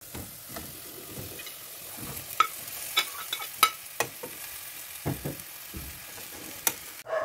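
Chicken adobo sizzling as it fries down in its sauce in a metal pot, stirred with a metal spatula. A steady sizzle runs under several sharp clinks and a few duller knocks of the spatula against the pot.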